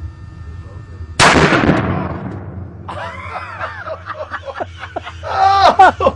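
A single loud gunshot about a second in, its crack dying away over a second or so, followed by people's voices crying out, loudest near the end.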